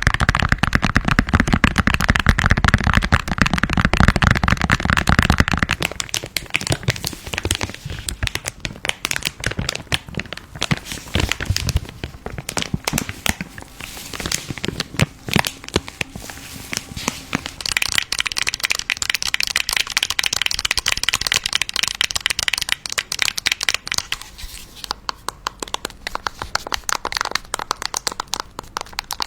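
A paper piñata being broken open and candy spilling out: dense, fast crackling and crinkling of paper with clicks of hard candies. It is loudest and fullest for the first six seconds, then goes on as a steady patter of small cracks and crinkles.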